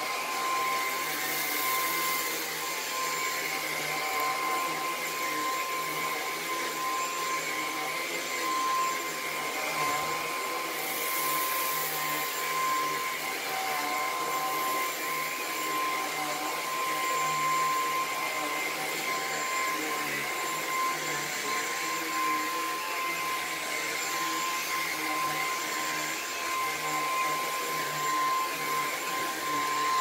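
Lupe Pure cordless stick vacuum running steadily while its floor head is pushed across carpet: a constant motor whine with a steady high tone.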